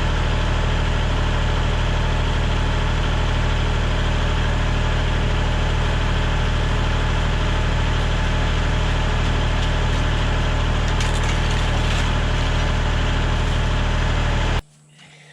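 An engine running steadily at an even idle, with a strong low hum, cutting off abruptly near the end.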